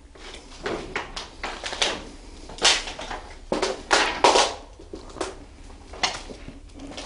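Footsteps crunching and scuffing over broken wooden boards and debris, an uneven run of steps with the heaviest crunches about two and a half and four seconds in.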